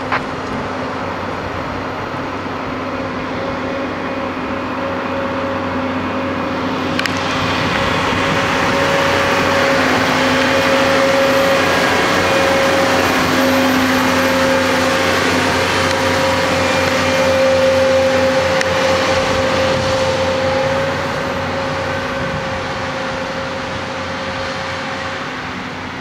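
Diesel engine of a rail-mounted maintenance-of-way track machine running as it rolls past on the rails, with a steady droning note. It grows louder to a peak midway and fades as the machine moves off.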